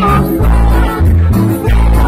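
Loud live band music: electric guitar, piano accordion and electric bass guitar playing together, with a strong bass line moving every half second or so.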